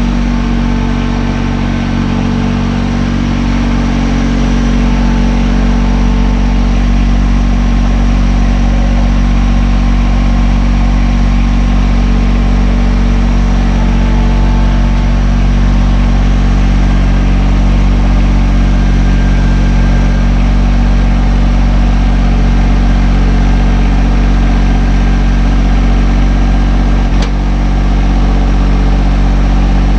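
A motor vehicle engine running steadily at an even speed, with a single sharp click near the end.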